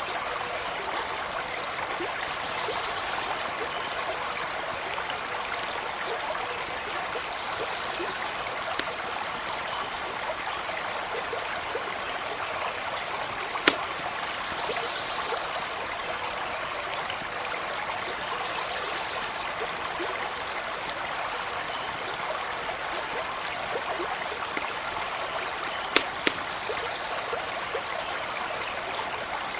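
A stream running steadily, with a campfire crackling over it and a few sharp pops: one about halfway through and two close together near the end.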